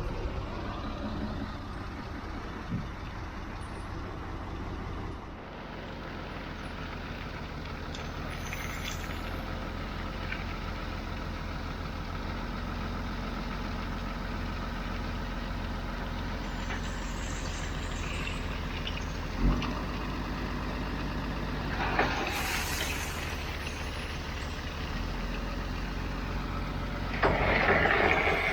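Hidromek 102B backhoe loader's diesel engine running steadily, with a short knock about 19 seconds in and a brief hiss a little later. It grows louder and noisier near the end.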